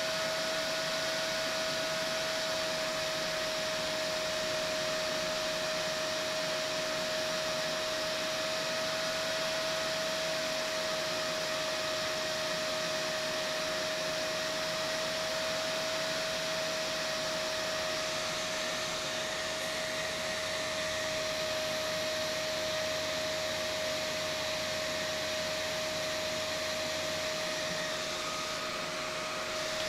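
Cooling fan on a Peltier module's heatsink running steadily: an even rush of air with a constant mid-pitched whine.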